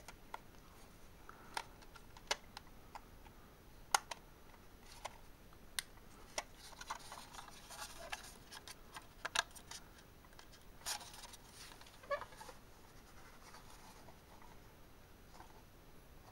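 Hard plastic figurine parts clicking and tapping as a railing and staircase pieces are pushed onto their pegs, with light rustling of handling in between.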